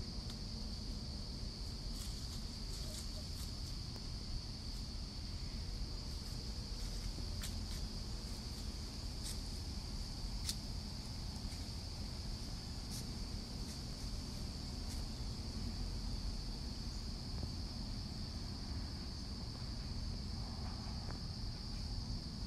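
Steady high-pitched chorus of insects, with a few short light clicks and rustles scattered over it.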